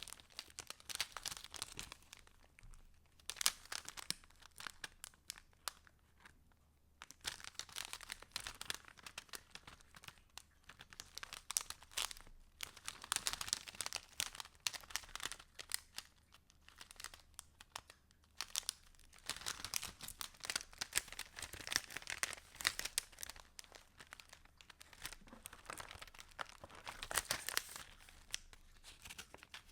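Paper pages and inserts of a handmade junk journal being handled and turned over, rustling in irregular bursts with sharp little snaps, and a short pause about five seconds in.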